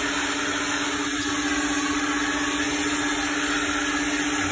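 Coin-operated car wash vacuum running, its wide plastic nozzle drawn over a carpet floor mat: a steady rush of suction with a constant low hum.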